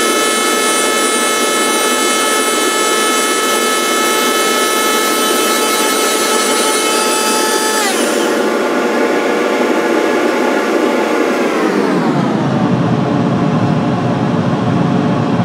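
Rose engine lathe running a cut in a wooden brush handle: a steady motor whine with several tones over a rushing cutting noise. The whine slides down in pitch about twelve seconds in and holds at the lower pitch.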